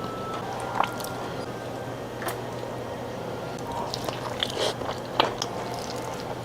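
A person eating close to the microphone: biting and chewing food, with scattered small crunches and clicks, over a steady low hum.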